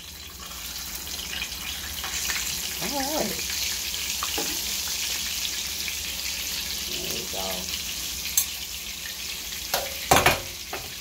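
A flour-and-cornmeal-breaded porgy fillet sizzling in hot oil in a stainless steel skillet as it is turned over with a spatula and a spoon. The frying hiss gets louder about two seconds in. A few sharp knocks come near the end.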